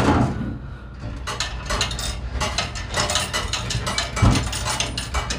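Soda vending machine paying out change in quarters: a quick run of metallic clinks as the coins drop into its coin-return cup.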